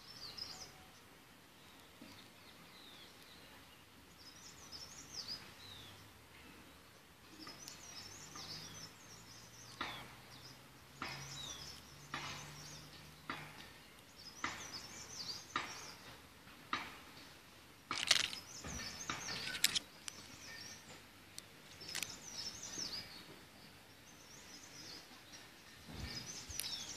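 Small birds chirping and twittering in short repeated calls, with a few sharp clicks scattered among them, the loudest about two-thirds of the way through.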